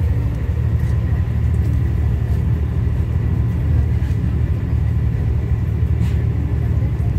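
Steady low rumble of a moving express train, heard inside the passenger carriage, with a faint steady whine above it and a few light ticks.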